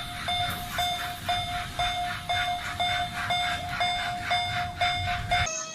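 Miniature railroad crossing alarm sounding its bell tone, about two strokes a second, and stopping near the end.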